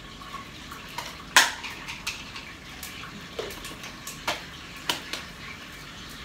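Spice jars and their lids being handled on a kitchen counter: a scatter of sharp clicks and knocks, the loudest about a second and a half in.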